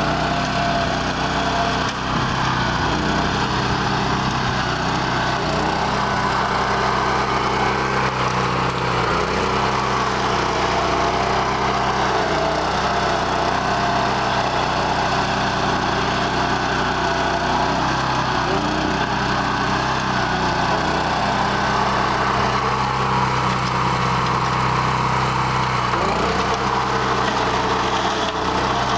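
A BCS 749 walk-behind tractor's 13-horsepower single-cylinder Honda gas engine running under load, driving a Berta 26-inch flail mower that is chopping through dead cornstalks and cowpea vines. The engine runs steadily, with its pitch dipping briefly a few times.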